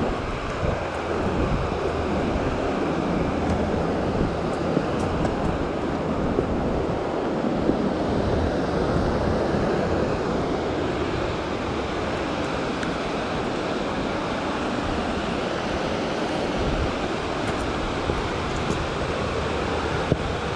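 Steady rushing of white-water rapids on the Kurobe River, with some wind on the microphone.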